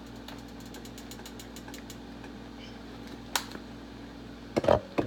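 Steady low mechanical hum, with faint rapid ticking in the first couple of seconds, a sharp click past the middle, and a few loud knocks near the end as spice containers are handled and set down.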